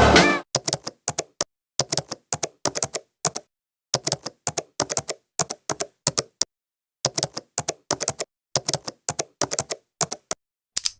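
Typing sound effect: sharp typewriter-like key clicks in quick runs of several strokes, with brief pauses of dead silence between runs.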